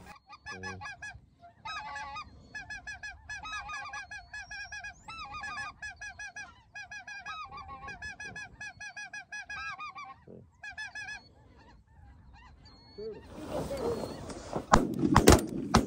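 A flock of geese honking, many overlapping calls repeating rapidly, which die away about eleven seconds in. Near the end a rush of noise, then shotgun shots in quick succession.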